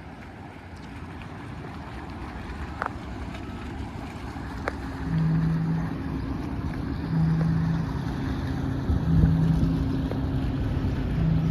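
Tugboat's diesel engine running and growing louder as it draws near, a low rumble with a steady hum. From about halfway through, a lower tone pulses on and off roughly every two seconds.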